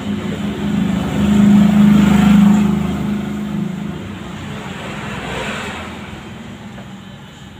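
Electric hair clipper buzzing at a steady pitch, swelling louder as it works close in and then switching off about four seconds in.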